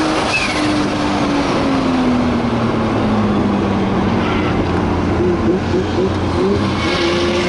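The 1000 hp Nissan Skyline R34 GT-R's 3.2-litre turbocharged RB straight-six, heard from inside the cabin over road noise. Its note falls steadily as the revs drop over the first few seconds, wavers briefly a few times about five to six seconds in, then holds steady.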